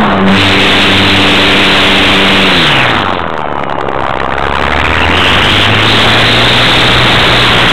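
Onboard sound of a radio-controlled model plane's motor and propeller: a steady drone that winds down about three seconds in, then throttles back up to a steady pitch, over a loud rush of air.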